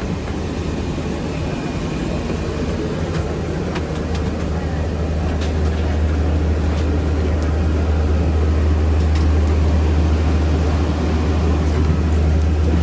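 Steady low drone of an airliner's air-conditioning during boarding, with a strong deep hum that gets a little louder about halfway through, and scattered light clicks and knocks.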